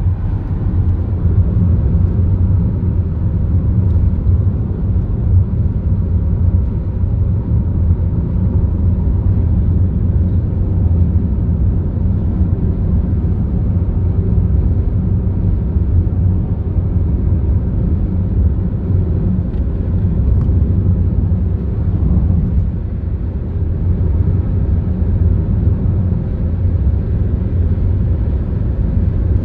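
Car driving at a steady speed: a continuous low rumble of engine and tyres on the road.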